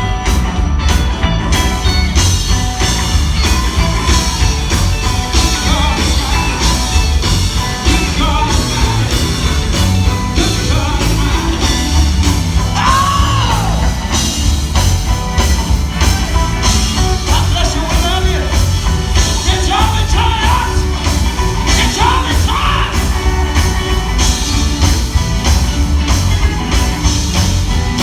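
Live gospel band playing with a steady beat and heavy bass, a lead singer's voice rising and shouting over it.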